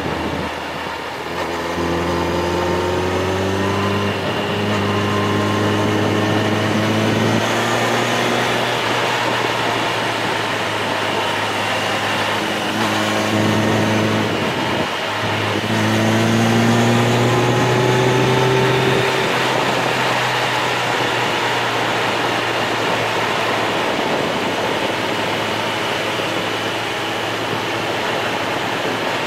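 Onboard sound of a motor vehicle descending a mountain pass road: the engine note rises with speed several times and drops suddenly at each gear change or lift-off. In the last ten seconds the engine fades under steady road and wind noise.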